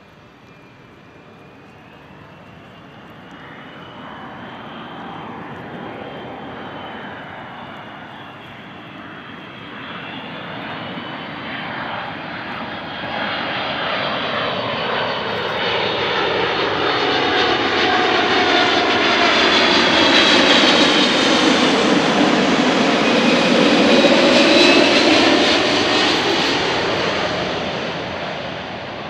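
Boeing 777-200 airliner on landing approach, its twin turbofan engines growing steadily louder as it nears. A roar carries several whining tones that bend downward in pitch as it passes. The sound is loudest about three quarters of the way through, then starts to fade.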